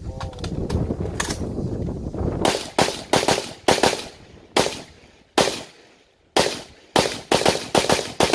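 Rapid gunshots, about fifteen in all, fired in quick strings of two to four with short pauses between.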